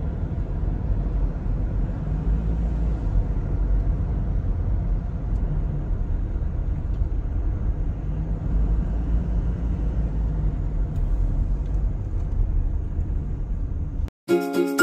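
Steady low rumble of engine and road noise inside a moving car's cabin. About fourteen seconds in it cuts off, and after a brief gap a bright chiming music jingle begins.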